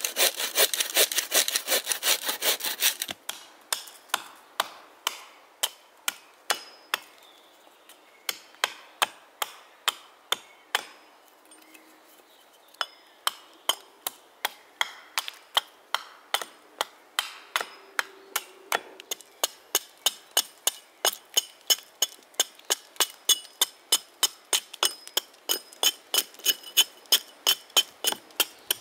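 Wooden bow saw cutting through a birch log for about three seconds. Then a hatchet strikes into and splits a birch round with repeated sharp knocks, coming faster near the end.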